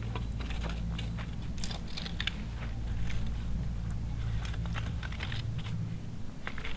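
A rake scraping and crunching across stony ground in short, irregular strokes, over a steady low rumble.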